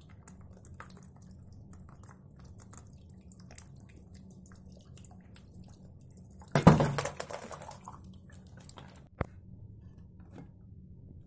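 Water dripping and trickling from a filling tube into a PET bottle hung from a 3D-printed PLA truss, over a low steady hum. About six and a half seconds in, a loud crash and splash, the loudest sound here, as the truss gives way under the load and the bottle drops; a single sharp knock follows a few seconds later.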